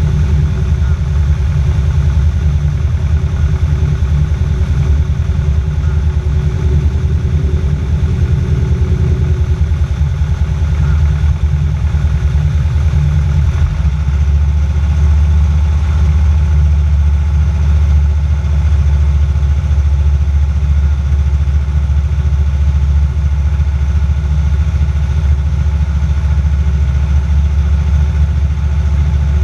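Aerocruiser float plane's engine droning steadily in the cabin through the descent and landing on the lake. Its low rumble grows stronger about halfway through.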